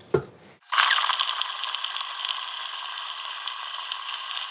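Stand mixer running as it beats butter. It starts suddenly under a second in and runs steadily as a thin, hissy whine with a high steady tone and no low end, the sound garbled by a fault in the recording's audio.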